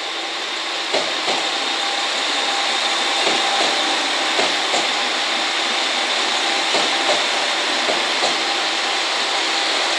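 JR Shikoku 2000 series diesel tilting express passing at speed: steady diesel engine and running noise, with wheels clicking over rail joints in quick pairs as each bogie crosses.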